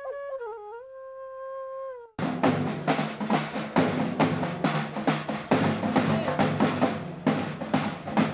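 Music: a flute plays a held, gently bending note. About two seconds in it cuts off abruptly into fast, loud drumming with rolls on snare and bass drums.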